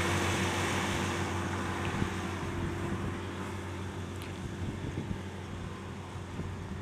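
Case IH CVX 1195 tractor running steadily while mowing with a mower-conditioner, its engine hum gradually fading as it drives away. Wind buffets the microphone.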